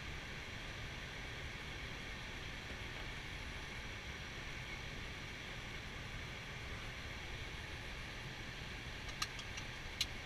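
Steady flight-deck noise of an Airbus A320 in flight: a constant rush with a low rumble underneath. A few sharp clicks come near the end.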